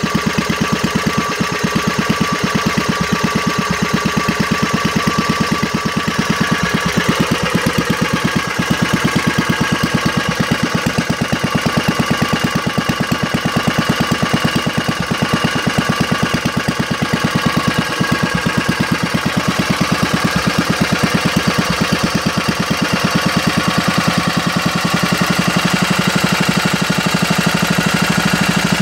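Bernard W 239 small stationary engine running steadily on a bench, with a fast, even firing beat.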